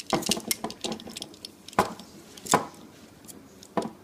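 Light clicks and taps of a Master Lock 175 combination lock being handled while a thin aluminium shim cut from a drink can is worked into it, with a few sharper clicks spaced irregularly through.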